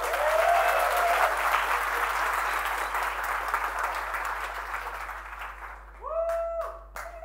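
Audience applauding, loudest at the start and fading away over about five seconds, with a voice or two calling out over it.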